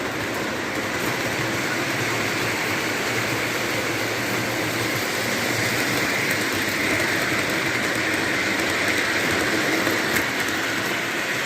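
O gauge toy train running on its track: a steady whirring rumble of wheels and motor, with a small click about ten seconds in.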